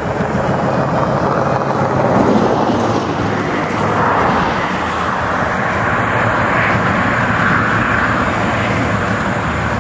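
Road traffic on a highway: a steady rush of engine and tyre noise with a low hum underneath.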